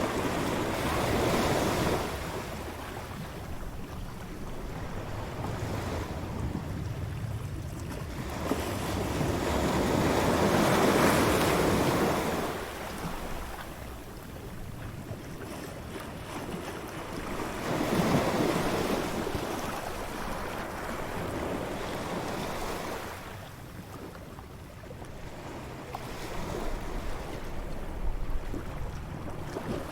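Ocean surf on a beach: waves breaking and washing in, the rush swelling and ebbing about four times, several seconds apart.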